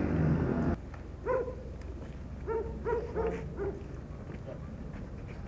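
A dog barking, about six short barks, mostly bunched in the middle, over a quiet outdoor background. Before them, a louder jumble of sound cuts off abruptly under a second in.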